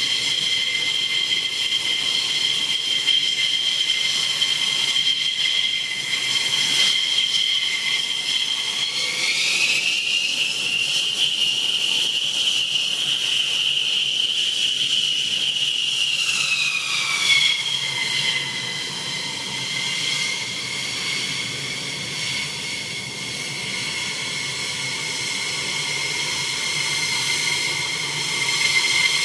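Jet engines of a taxiing F-15E Strike Eagle giving a high turbine whine over a rushing hiss. The whine rises in pitch about nine seconds in as the engines spool up, holds, then winds back down a little after sixteen seconds.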